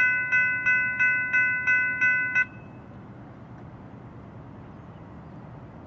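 Railroad grade crossing bell ringing rapidly, about three strikes a second, that stops abruptly about two and a half seconds in, leaving only faint steady background noise.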